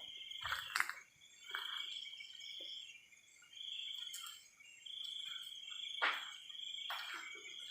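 Night insects chirring in repeated trills of about a second each, over a steadier high-pitched drone. Several short scuffing knocks break in, the loudest about six seconds in.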